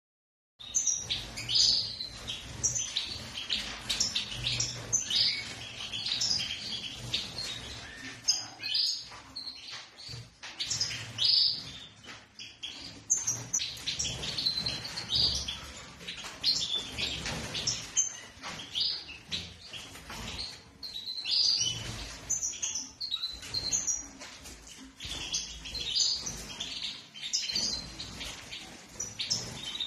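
A room of caged European goldfinches and canaries chirping and twittering continuously, many birds calling over one another.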